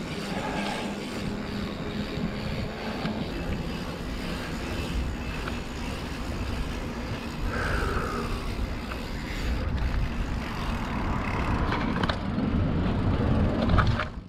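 Wind rumbling on the mic of a mountain bike rolling along pavement, with steady tyre noise. The sound cuts off abruptly at the end.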